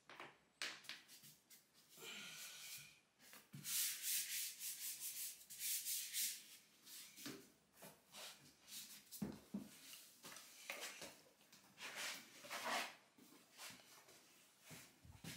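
Knuckles rubbing hard along a glued-down luxury vinyl plank, pressing it into the adhesive: a run of irregular scuffing strokes.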